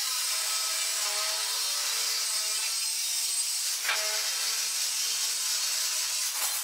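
Metal-cutting chop saw with a carbide-tipped blade running at low RPM and cutting through flat steel bar stock, a steady saw noise with a brief change about four seconds in.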